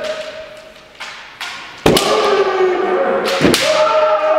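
Kendo practice: two sharp impacts of shinai strikes and stamping feet on the wooden floor, about a second and a half apart, each followed by a drawn-out kiai shout that falls in pitch.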